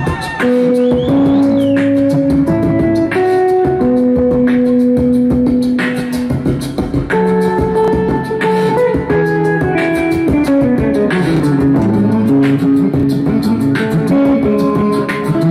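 A singer beatboxing into a handheld microphone: a rapid, steady run of vocal clicks and drum-like hits. Under it runs a line of held guitar notes that step from pitch to pitch.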